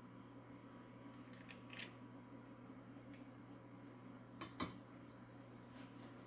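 Faint room hum with a few light clicks and knocks: two quick ones a bit under two seconds in and a single louder knock about halfway through.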